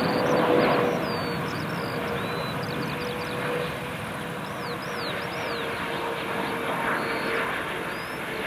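Boeing 777 freighter's twin GE90 turbofan engines on landing approach as it passes low: a steady broad rush with a held tone that slides slightly lower, loudest near the start and slowly fading. Small birds chirp high above it.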